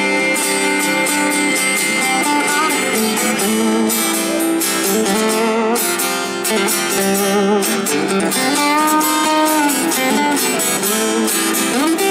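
Amplified acoustic guitars playing an instrumental break: a lead line of sustained, bending notes on a double-neck acoustic guitar over a strummed acoustic rhythm guitar.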